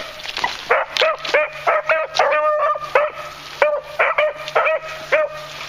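Two beagles giving tongue on a scent line: about a dozen short, high yelping barks with one longer drawn-out call near the middle, dying away shortly before the end.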